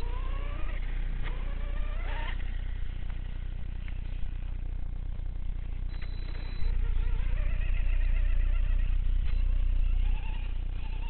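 Brushless electric motor of a 1/6-scale Redcat Shredder RC truggy on a 4S LiPo whining as it drives, rising in pitch as it accelerates during the first two seconds and wavering with the throttle later on. A louder low rumble on the microphone runs from about the middle to near the end.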